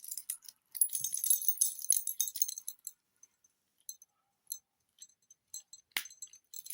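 Metal keys on a keyring jingling and clinking as they are handled and tucked into a small leather key holder. There is a dense run of clinks over the first few seconds, then scattered clinks and a sharp click near the end.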